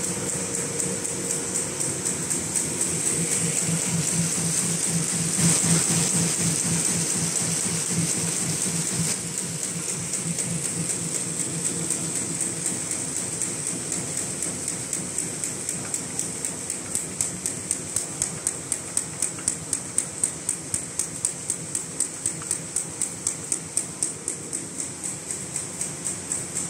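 Paper bag making machine running: a steady hiss and hum of its rollers and paper feed, with a fast, regular clacking from its mechanism that grows clearer about halfway through.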